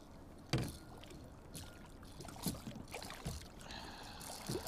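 Water splashing and knocks as a small hooked fish is lifted from the water beside a kayak and handled. The loudest sound is a sharp hit about half a second in, followed by a few smaller knocks.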